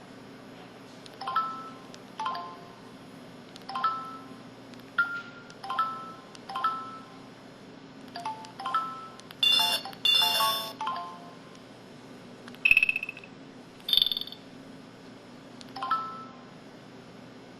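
Samsung SCH-E250 mobile phone playing its built-in sound effects: a series of short electronic chime tones, each a few quick notes, roughly one a second, with a longer, busier jingle in the middle and two single higher beeps after it.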